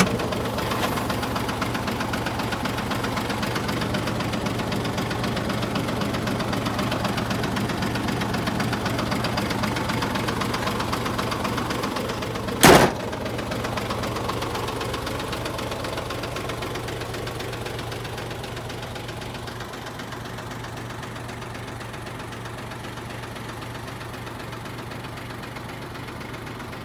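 Hino heavy truck's diesel engine idling with a steady clatter, heard close at the front grille and growing quieter over the second half. A single sharp knock cuts through about halfway through.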